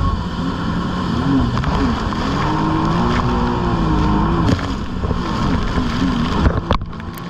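Jet ski engine running on the water, its pitch rising and falling as the throttle is worked, over a steady rush of noise.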